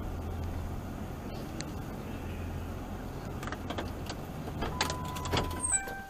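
Car running at low speed, heard inside the cabin as a steady low hum. Toward the end come several sharp clicks and a steady beep lasting about a second, and the engine hum stops just before the end.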